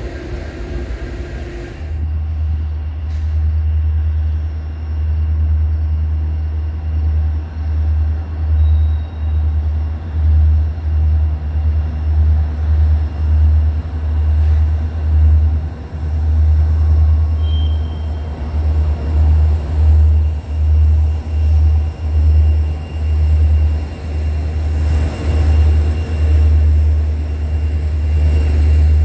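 A freight train led by EMD diesel locomotives rolling past with a long string of tank cars. Its deep rumble swells and dips in quick regular pulses as the cars go by.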